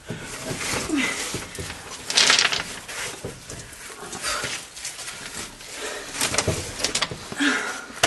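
A caver squirming through a tight crawl, with the oversuit and helmet scraping and rustling against rock in irregular bursts. Short effortful grunts and breaths come through, including a falling grunt about a second in.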